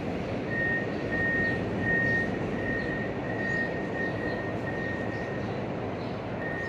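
Wheel loader's reverse alarm beeping at a steady high pitch in a regular on-off rhythm, the sign that the machine is backing up. Under it runs a steady wash of surf and the loader's engine.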